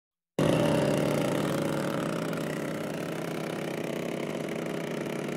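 Two-stroke chainsaw engine running steadily, cutting in abruptly from dead silence a fraction of a second in, a little louder at first before settling to an even level.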